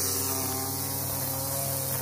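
String trimmer used as a lawn edger, running at a steady speed as its line cuts grass along a concrete sidewalk edge.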